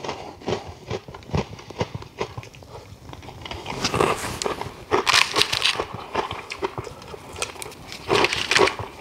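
Crunching and chewing of brittle homemade honeycomb toffee: a run of short crisp crunches, with louder crackly bursts about four seconds in, around five seconds and again near the end.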